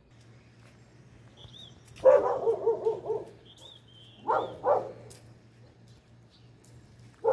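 A dog barking: a quick run of barks about two seconds in, two short barks a little after four seconds, and another near the end.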